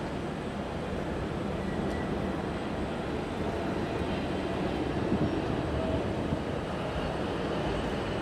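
Distant jet engine noise from a Boeing 787's twin GE GEnx-1B turbofans at takeoff power as the airliner climbs away: a steady low rumble.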